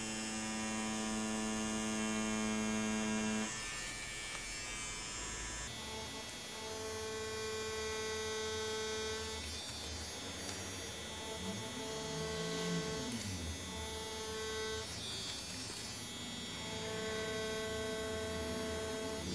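DragonHawk Mast Archer wireless rotary tattoo machine, a 3.5 mm-stroke liner, running with a steady electric hum while lining on fake skin. Its pitch shifts a few seconds in, and it breaks off briefly twice.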